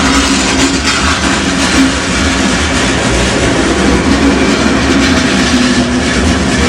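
Passenger train running along the track: a steady rolling rumble with a constant hum underneath.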